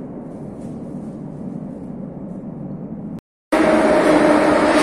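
Steady low rumble of a metro station platform. After a brief cut, a metro train enters the station, much louder, with a rushing rumble and a motor whine that slowly drops in pitch as it slows.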